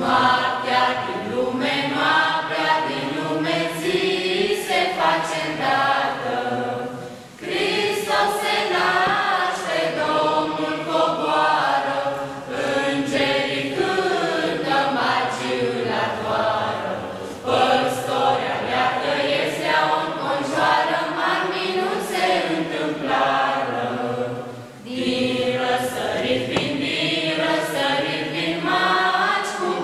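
Small mixed choir of young men and women singing a Christmas carol (colind) in unison phrases, with short breaths between phrases about seven and twenty-five seconds in. No instrument is heard.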